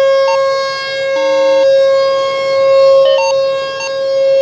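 Outdoor civil defense warning siren sounding a steady, unwavering tone, its loudness swelling and fading.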